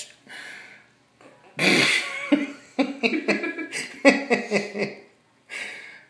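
Cockatiel giving a loud, harsh screech about a second and a half in, then shorter squawks, screaming at the vet-wrap bandage on its broken wing.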